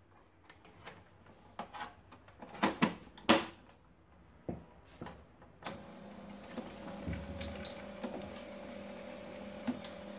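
Knocks and clicks as the front cover of a Samsung CLP-365 colour laser printer is swung shut and latched. About six seconds in, the printer's motors and fan start with a steady hum as it starts up after the cover is closed, its status light settling on green.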